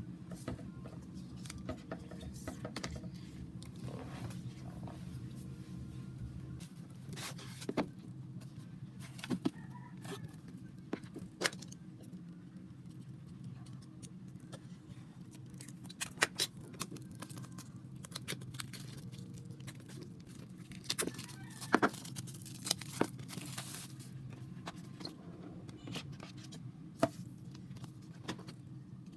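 Album packaging and its contents being handled and unpacked: scattered sharp clicks, taps and crinkles of plastic and card, over a steady low hum. The clicks cluster most densely around the middle and a little after.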